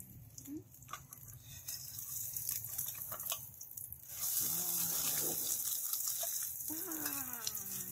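Food sizzling in a hot frying pan, the sizzle starting suddenly about four seconds in and then holding steady. A woman's voice coos briefly twice over it.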